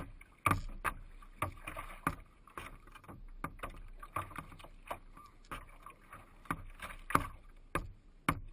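Irregular series of knocks, about two a second, over a low steady noise.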